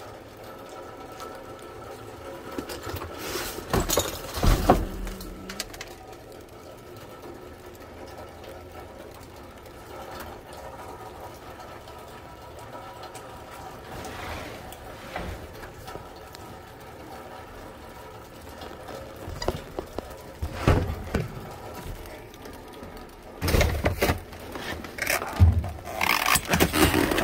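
Rustling and crinkling of cardboard boxes and plastic wrap as trash in a dumpster is handled and stepped on, in a few bursts about four seconds in, around twenty seconds in and near the end, over a steady background hum.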